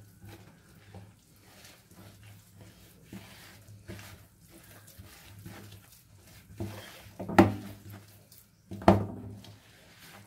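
Soft dough being kneaded by hand in a plastic bowl: a run of small squishing and scraping sounds of fingers working flour and dough, with three louder knocks in the second half, about a second or so apart.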